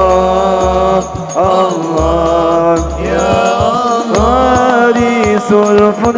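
Sholawat, an Arabic devotional song praising the Prophet: a voice holding long, ornamented notes that slide between pitches, over a deep bass and light percussion.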